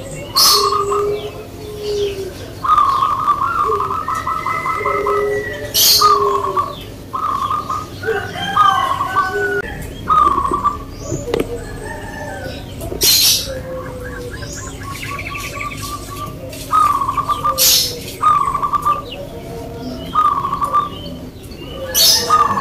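Zebra doves (perkutut) singing: a run of short cooing notes, some broken by a quick rattling trill. Loud, sharp chirps cut in about five times.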